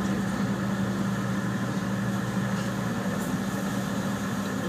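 Tour boat's engine running steadily, a low hum heard on deck; a deeper tone under it drops away about three seconds in.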